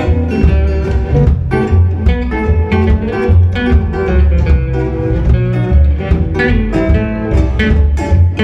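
Music with plucked guitar over a steady bass line.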